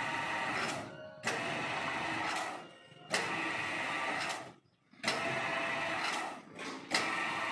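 Electric winch motor of a monkey hoist running with a steady whine in short runs of about a second, switched on and off repeatedly by remote control, starting abruptly each time.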